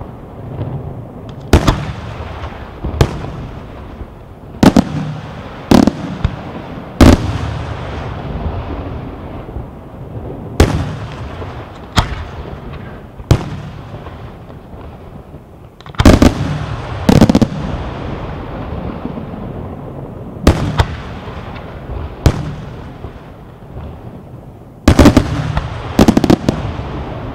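Aerial firework shells bursting in a display: loud sharp bangs at uneven intervals of one to three seconds, some in quick pairs, each followed by an echoing rumble.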